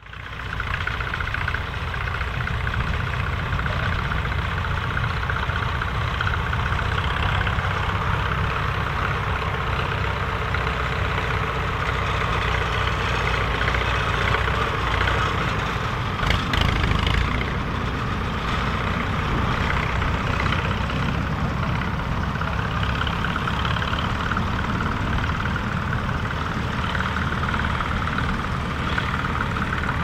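Fiat 615DT tractor's diesel engine running steadily under load, working hard while it pulls a three-furrow plough.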